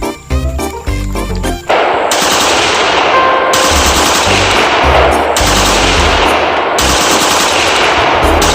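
Rapid automatic gunfire in several long bursts, starting about two seconds in, over background music with a steady bass line.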